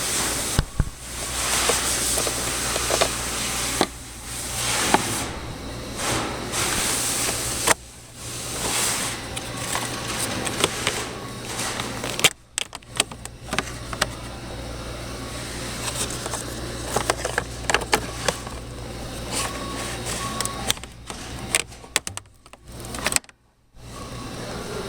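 Hands working on plastic interior trim and the cabin air filter housing: repeated clicks, knocks and rustling swells over a steady low hum.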